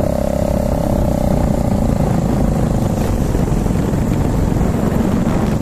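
Motorcycle engine running steadily while riding on a dirt track, with a continuous low rumble of engine and wind on the microphone. A humming tone fades out in the first couple of seconds.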